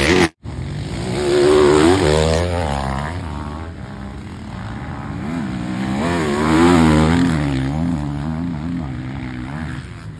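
Dirt bike engines revving up and down as motocross bikes ride past on the track. They swell loudest about one and a half seconds in and again near seven seconds.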